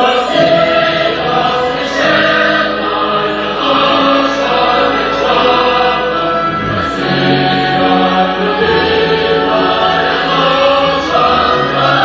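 Choral music: a choir singing held notes that change every second or so.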